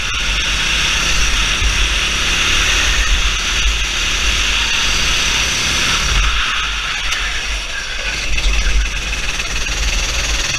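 Go-kart engine running hard at racing speed, heard from onboard with heavy wind buffeting on the microphone; it eases briefly about six seconds in going into a corner, then picks up again.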